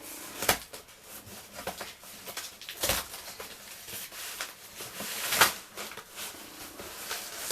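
Large cardboard box being worked open by hand: rustling and scraping of cardboard and tape, with three sharp knocks, about half a second, three seconds and five and a half seconds in.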